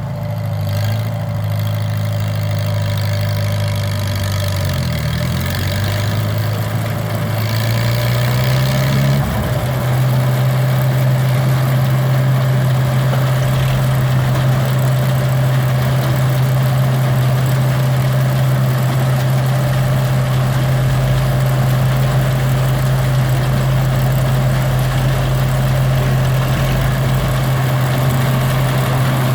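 Engine driving an Arthur Young hay baler running up to speed, its low hum rising in pitch over the first several seconds and then holding steady.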